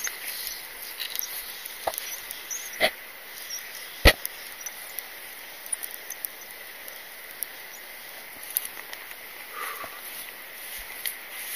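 A few sharp knocks and clicks, the loudest about four seconds in, from fly-fishing gear being handled close to a body-worn camera, over a faint steady high tone.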